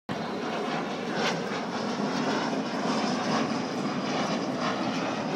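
Avro Vulcan bomber's four Rolls-Royce Olympus turbojets running as the aircraft flies past overhead: a steady, loud jet noise.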